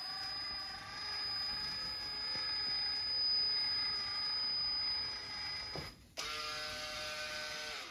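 Battery-powered caulking gun's motor and gears whirring as it pushes silicone out along a glass seam. It stops for a moment about six seconds in, then starts again with a steadier whine.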